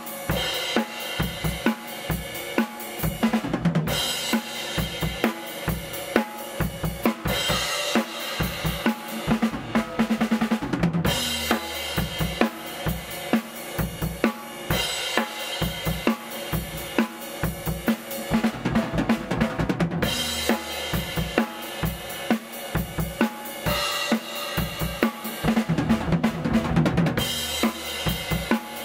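Acoustic drum kit played in a studio, with kick drum, snare, hi-hat and cymbals in steady repeating grooves.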